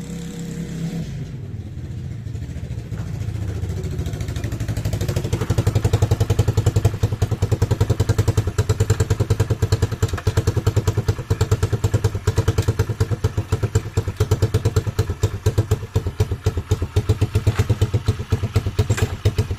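YX 140 cc single-cylinder four-stroke pitbike engine running, growing louder over the first few seconds as it comes close, then holding at low revs with a quick, even train of exhaust beats. It cuts off suddenly at the end. The engine is on its first run after standing all winter, and its idle is a touch low, which the owner wants to raise slightly.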